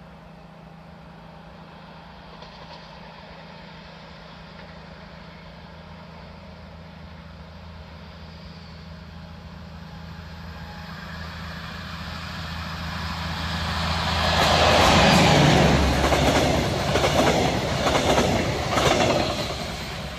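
Diesel-hauled regional train of red double-deck coaches approaching and passing. A rumble grows from about ten seconds in and is loudest around fifteen seconds, then a run of wheel clatter beats follows as the coaches go by.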